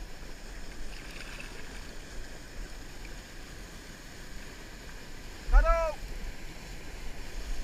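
Whitewater rushing steadily down a concrete weir drop. About three-quarters of the way through comes a brief high call that rises and falls, together with a loud low rumble.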